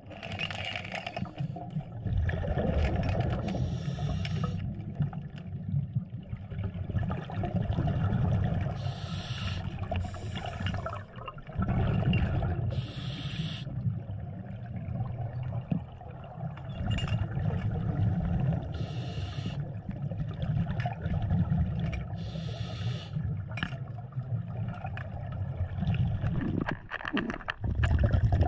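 Underwater sound on a scuba dive: a steady low rumble of water against the camera housing, broken every few seconds by short bursts of hissing bubbles from a diver's scuba regulator as he breathes.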